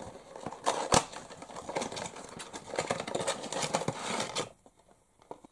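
A small toy figure's boxed packaging being handled and opened: a run of rapid clicks and crinkles, with one sharp click about a second in, stopping about four and a half seconds in.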